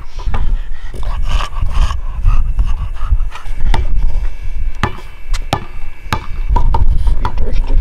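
A basketball bouncing on a concrete driveway: four or five sharp knocks in the middle of the stretch, over a loud, uneven low rumble.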